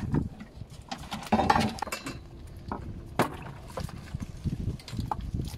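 Scattered metallic clinks and knocks as the landing net's metal frame and fishing tackle are handled against the fibreglass boat while a fish is taken out of the net, over a low steady rumble of wind and water.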